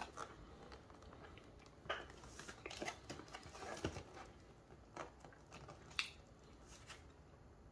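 Faint, scattered clicks and crinkles of a plastic muffin package being handled.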